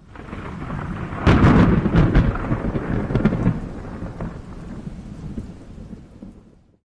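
A clap of thunder: a deep rumble with sharp crackles that swells in the first second and a half, then rolls away and dies out near the end.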